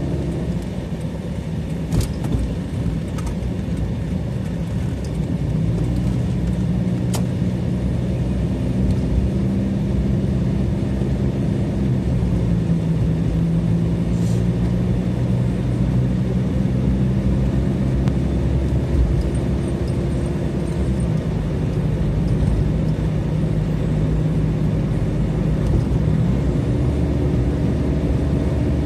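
Car running and tyre noise heard from inside the cabin while driving: a steady low rumble with a hum whose pitch shifts up and down several times. A few faint clicks early on.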